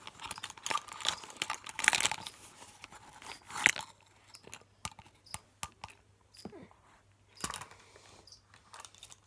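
Box of baking soda being handled and scooped with a plastic measuring spoon: dense crunching and crackling of cardboard and powder for the first few seconds, then scattered light clicks and taps.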